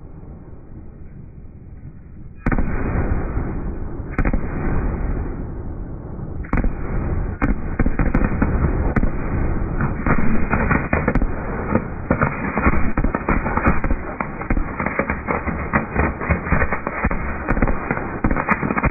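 Fireworks finale: after a quieter couple of seconds, a sudden loud bang, then two more bangs a couple of seconds apart. From about seven seconds in comes a dense barrage of rapid bangs and crackles.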